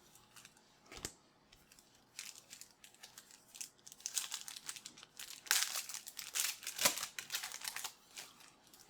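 Trading-card pack wrapper being torn open and crinkled: a run of crackles and rips that grows denser and louder past the halfway point, with a sharp click about a second in.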